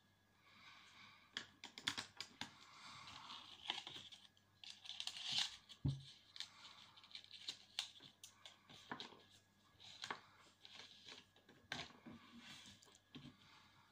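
Irregular light clicks and rustling of small objects being handled: makeup cases and packaging being picked up, opened and put down.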